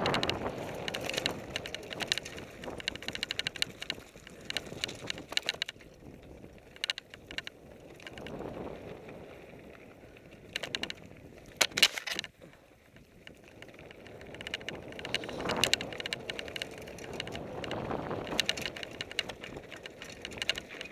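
Fuji Thrill LTX mountain bike rolling fast down a dirt singletrack: tyre and wind noise swelling and fading, broken by clusters of clicking and rattling from the bike over rough ground. The sharpest clatter comes about twelve seconds in.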